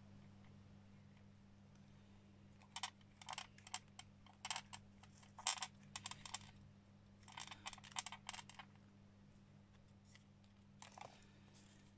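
Quiet, quick clicks and rustles of a small card craft tag being handled, its string, charm and bead chain moving, in two short clusters, over a faint steady low hum.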